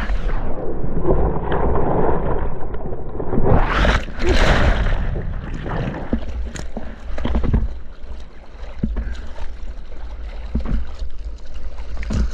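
Surf whitewater churning over an action camera on a surfboard: muffled for a few seconds, then a bright rush of spray. After that come irregular splashes of the surfer's hand-paddling strokes and water slapping the board, over a steady low rumble of moving water.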